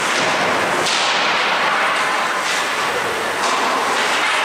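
Ice hockey play in a rink: a steady wash of rink noise with several sharp, hissy strokes of skates and sticks on the ice.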